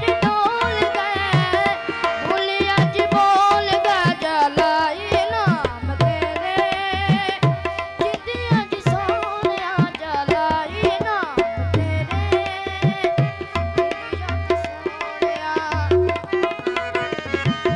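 Live folk music: a tabla beats a quick, steady rhythm under a melody that slides and bends in pitch, over a held drone note.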